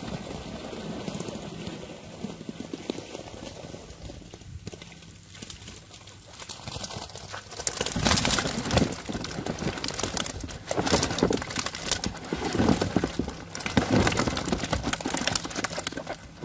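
Freshly caught fish tipped from a wet keepnet into a plastic tub, then flapping and slapping against its sides and each other. From about eight seconds in there are rapid, irregular knocks and wet slaps in clusters.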